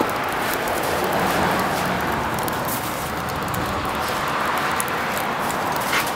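Steady rushing outdoor noise with many faint, short crackles scattered on top.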